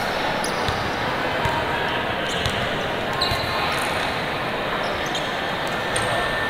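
A basketball bouncing a few times on a hardwood gym court, over a steady din of voices echoing in the hall.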